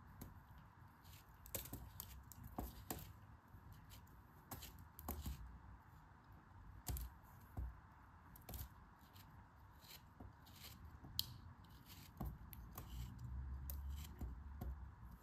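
Snap-off craft knife blade slicing and scraping through moulded kinetic sand, a faint string of short, irregular cuts and crumbles.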